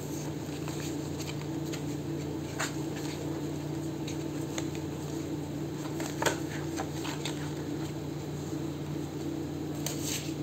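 Light handling of paper and cardstock: a few soft rustles and small taps, the clearest about two and a half and six seconds in, over a steady low hum.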